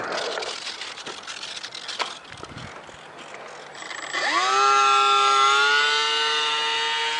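The small electric motor and propeller of a ParkZone Icon 5 ultra-micro RC flying boat spool up about four seconds in: a whine that rises quickly in pitch, then holds steady at high throttle. Before it there is a noisy hiss with scattered clicks.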